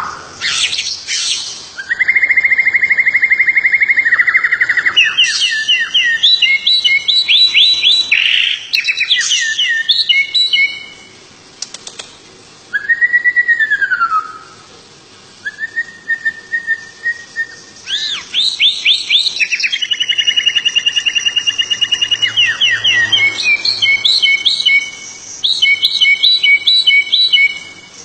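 Small songbird singing a long varied song: rapid rolling trills, rows of sharp repeated notes and clear held whistles, including one whistle that rises and falls, broken by short pauses between phrases.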